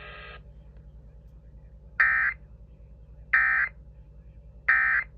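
EAS end-of-message data signal: three short, identical electronic screeches evenly spaced a little over a second apart, marking the end of the severe thunderstorm warning broadcast. A faint steady tone cuts off just before them.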